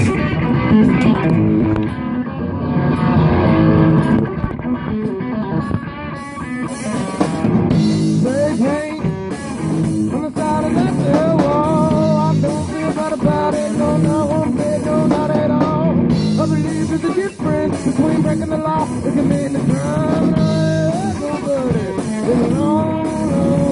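A two-piece rock band playing live: amplified electric guitar and a drum kit. A wavering melody line comes in over the chords about eight seconds in.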